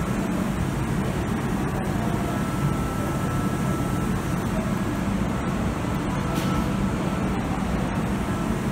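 Steady hum and rush of a Kintetsu limited express train standing at a station platform with its onboard equipment running, with a faint high whine over it.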